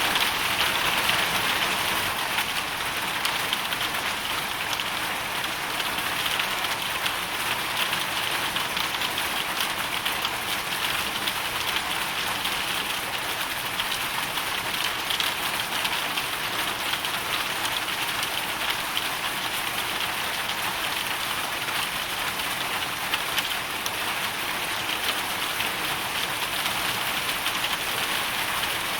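Hailstorm: a steady, dense patter of hailstones striking surfaces, countless small ticks over a continuous hiss.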